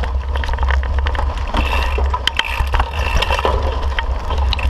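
Mountain bike clattering over rocky singletrack: many short knocks and rattles from tyres and bike on rock, over a steady low rumble of wind and vibration on the camera's microphone.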